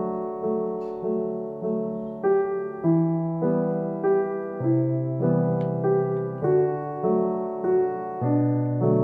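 Background music: a piano playing an evenly paced run of notes and chords, a little under two a second.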